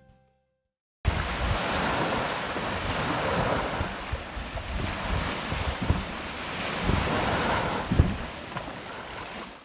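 Sea surf washing onto a beach, with wind gusting across the microphone in uneven low rumbles. It starts abruptly about a second in.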